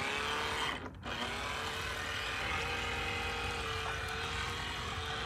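Small 1S electric motor of a cheap RC boat whining steadily as the boat runs, cutting out briefly about a second in and then winding back up to a steady pitch. The boat is not getting up on plane.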